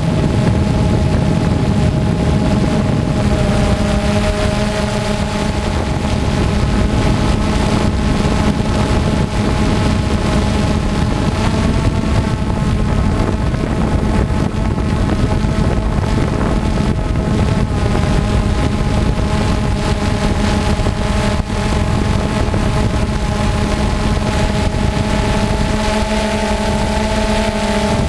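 FPV quadcopter's motors and propellers running with a steady multi-tone whine over a rush of wind noise, the pitches shifting slightly near the end as the throttle changes.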